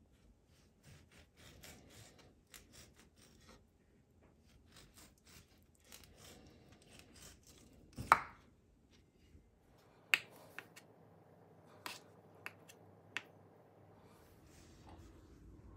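Knife cutting an avocado on a wooden cutting board: faint scraping strokes as the blade slices, a loud knock about eight seconds in, then a handful of sharp taps of the blade on the board.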